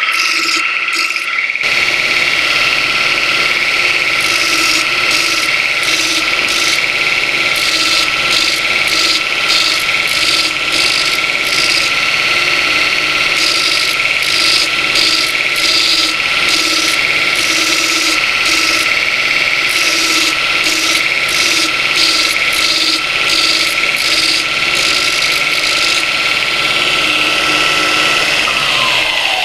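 Burr King belt grinder running at full speed with a steady motor whine and a rasping grinding noise that comes and goes, then winding down near the end as the motor is switched off.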